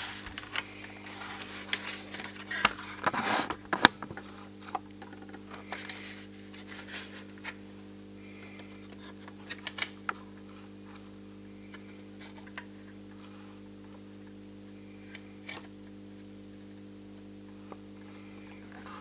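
Handling noise from an opened satellite receiver being picked up and moved about: rubbing, scraping and sharp clicks of its metal casing and front panel, densest in the first four seconds and then thinning to a few scattered taps. Under it runs a steady low hum.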